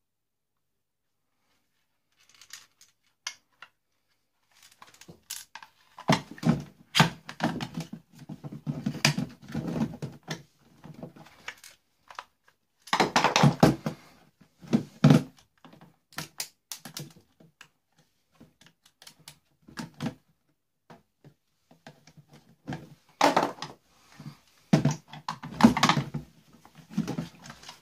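Plastic casing of a steam iron being handled and taken apart with screwdrivers: irregular clicks, knocks and plastic clatter, starting a couple of seconds in.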